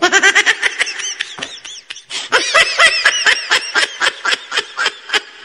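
High-pitched laughter in two long runs of quick 'ha' pulses, about five or six a second, the second run starting about two seconds in.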